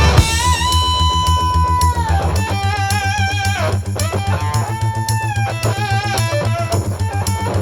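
Background rock music: a lead electric guitar playing held, bending notes over drums and bass guitar.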